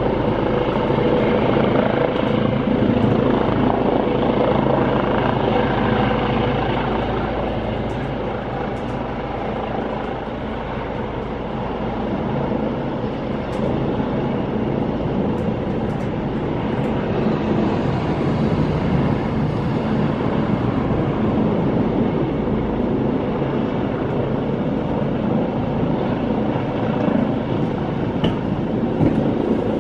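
Helicopter landing, its rotor and turbine making a loud, steady drone. The drone dips slightly about ten seconds in, then builds again with more hiss.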